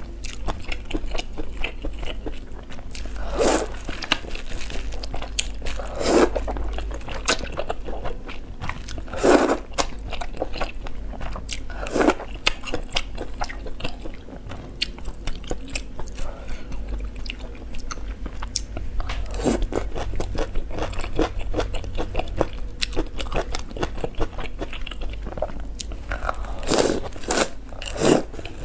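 Close-miked eating sounds of a person eating thick noodles from a spicy broth: constant wet chewing and mouth clicks, with a louder slurp every few seconds and two close together near the end.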